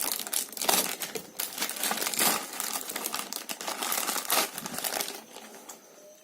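Packaging being handled and opened, crinkling and rustling in quick irregular crackles that die down about five seconds in.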